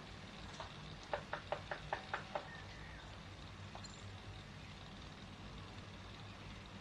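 A quick run of about seven sharp knocks, a little over a second long, about a second in, over a steady low hum.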